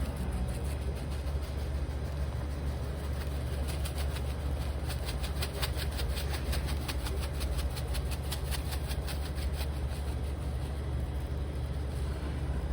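A seasoning shaker being shaken over food: a quick run of rattling taps from about three to ten seconds in, over a steady low hum.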